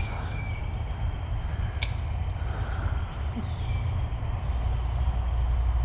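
Low steady rumble of road traffic, growing louder near the end as a vehicle passes, with one sharp click about two seconds in.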